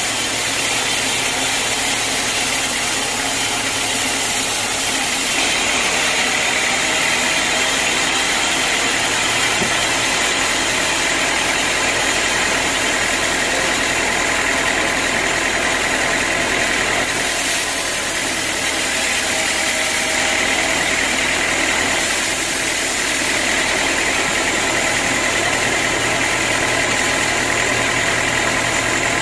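Sawmill machinery running steadily: a constant mechanical noise with a high whine that swells and eases slightly at times.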